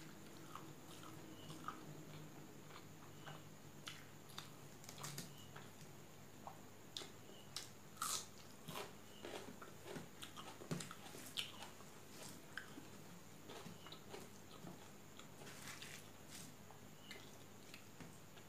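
Faint close-up eating sounds: chewing a mouthful of hand-eaten rice, with irregular wet mouth clicks and fingers mixing rice on a steel plate.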